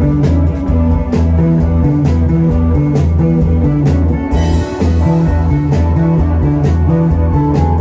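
Live rock band playing loud: electric guitars and bass repeat a short low riff over drums, with cymbals struck at a steady beat.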